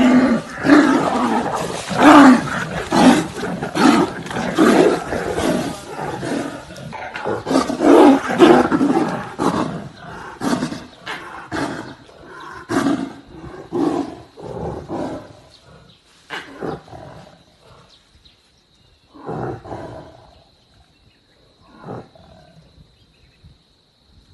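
Two tigers roaring and growling at each other in a fight, with loud calls about once a second that thin out to a few separate roars in the last third.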